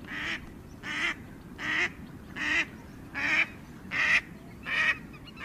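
A waterfowl calling over and over: seven short nasal honking calls at an even pace, about one every three-quarters of a second.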